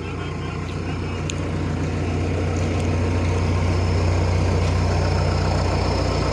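Heavy diesel engine running steadily, its drone swelling over the first few seconds and then holding at a constant load.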